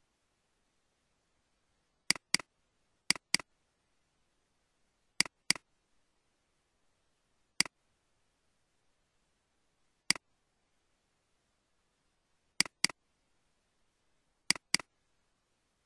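Computer mouse button clicks, mostly in quick double-click pairs: five double-clicks and two single clicks, opening folders in Windows Explorer.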